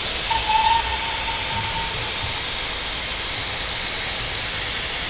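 A steam locomotive's whistle sounding one short high note about half a second in, fading away over about a second and a half, over a steady hiss.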